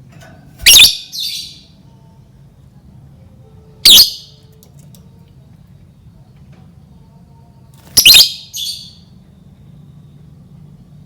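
Lovebird giving three loud, shrill calls about four seconds apart, the first and last each followed at once by a shorter, fainter call.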